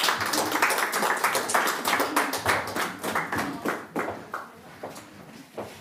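A small audience applauding, the clapping loud for about four seconds, then thinning out and dying away near the end.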